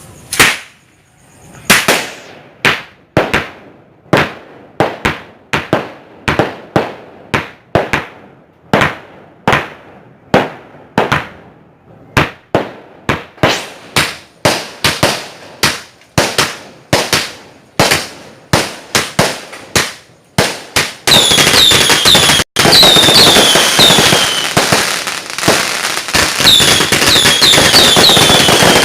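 Multi-shot consumer firework going off: sharp separate bangs about two a second, then from about twenty seconds in a dense stream of crackling with short falling whistles.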